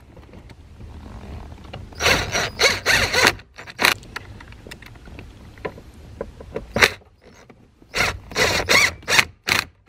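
Steering-column trim and parts being handled and worked back into place: repeated bursts of scraping and rubbing, a cluster of them a couple of seconds in, single ones near 4 and 7 seconds, and another run near the end.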